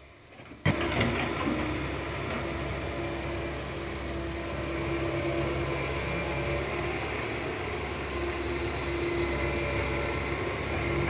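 Komatsu PC160 hydraulic excavator's diesel engine running steadily under work. It cuts in suddenly under a second in, after a brief lull.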